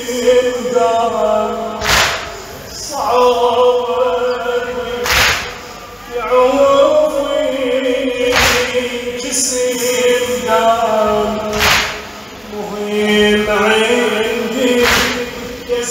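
A crowd of men chanting a Shia latmiya (mourning chant) together, broken by a loud collective chest-beating slap about every three seconds, five in all.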